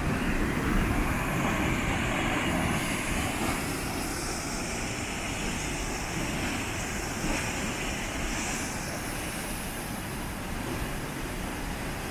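River in flood pouring brown storm runoff over a rocky waterfall: a steady, dense rush of falling and churning water.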